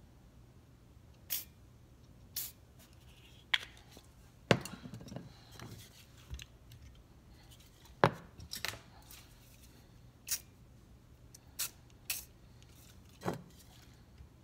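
About ten separate sharp clicks and knocks of metal aerosol and oil cans and their caps being handled and set down on a workbench.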